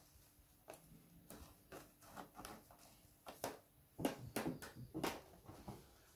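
Irregular soft taps and clicks of a paint-covered rubber balloon being dabbed against a canvas, coming thickest about four to five seconds in.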